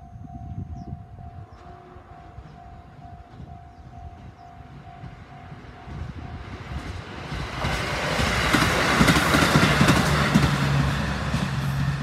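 Japanese level-crossing alarm dinging at about two strikes a second, then drowned out about seven seconds in by a diesel train on the rails coming through, loud with wheels clacking over the rail joints and a low engine hum, loudest a few seconds later.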